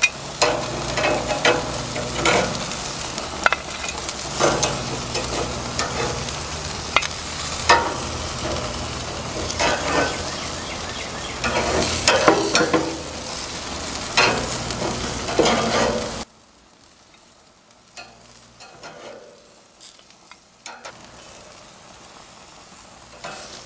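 Chicken drumsticks sizzling on a gas grill, with sharp clicks and clacks of metal tongs against the grate and a glass baking dish as the pieces are moved. About sixteen seconds in the sound cuts off suddenly, leaving only a faint background.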